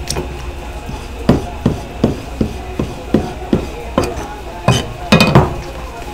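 Kitchen knife slicing raw sea squirt flesh, the blade knocking on a plastic cutting board about two to three times a second, with the loudest knocks near the end.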